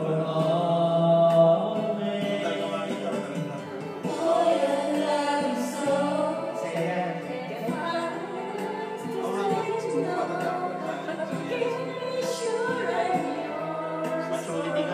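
Karaoke singing: a voice sung through a microphone over a recorded backing track, both carried by the same amplified speaker.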